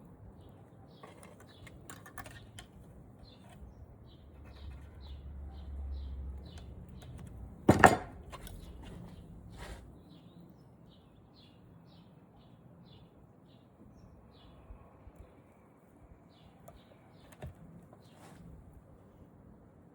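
Small birds chirping in a quick repeated series of short high notes. A low rumble swells in the middle, and about eight seconds in a single sharp knock stands out as the loudest sound.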